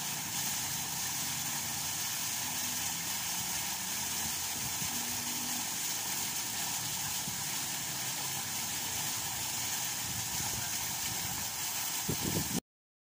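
Fountain water falling steadily into a shallow pool, an even splashing hiss; it cuts off suddenly near the end.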